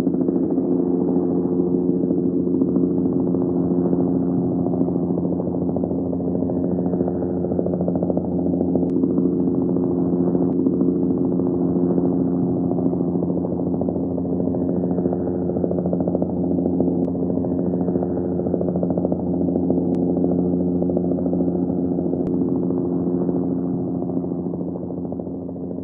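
Helicopter running steadily, with a rapid rotor beat over a steady engine drone, easing off slightly near the end.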